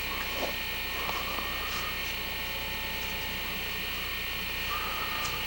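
Steady electrical hum with hiss, unchanging, with a few faint short sounds barely above it.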